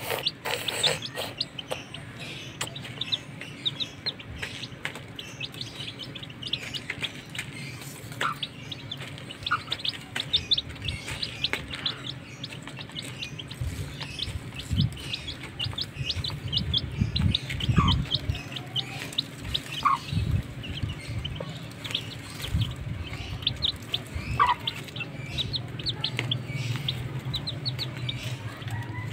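A brood of young chicks peeping over and over in short, high chirps while they feed, with a few louder falling peeps and occasional low clucks from the mother hen.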